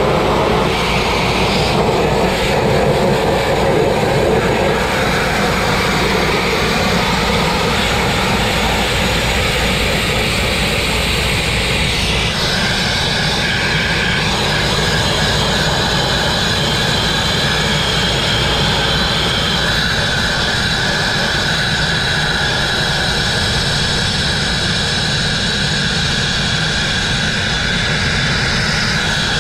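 Grit blasting: a steady, loud jet of compressed air and abrasive grit hissing from the blast nozzle onto the crane's rusty, painted steel. About twelve seconds in, the hiss changes and a higher whistling note joins it.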